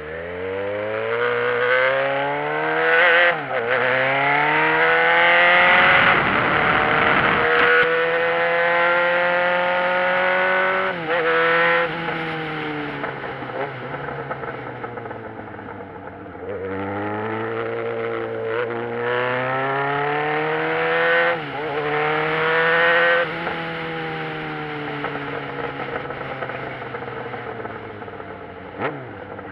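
Motorcycle engine accelerating hard through the gears: its pitch climbs and then drops sharply at each upshift, several times over. Between the bursts it settles to a lower, steady pitch. About six seconds in there is a rush of wind noise.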